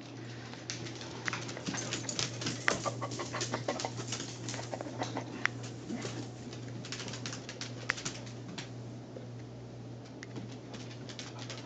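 Dogs play-wrestling: claws clicking and scrabbling on a hardwood floor, with short low play growls, busiest from about a second in until about eight seconds in, then thinning out.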